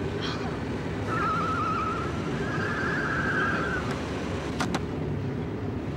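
Steady rush of wind and road and engine noise from a fast-moving car, heard from inside an open car. From about a second in, a high wavering tone runs for about three seconds, and two quick clicks come near the end.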